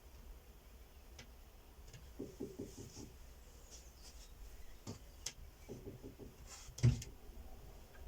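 Quiet room with scattered faint clicks and small rustles, and one brief, louder soft knock about seven seconds in.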